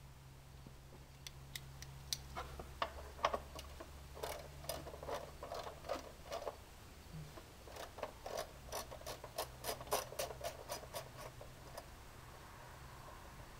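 Hand socket ratchet clicking as the 10 mm timing-cover bolts are turned out; irregular clicks at first, then a quicker run of clicks near the end.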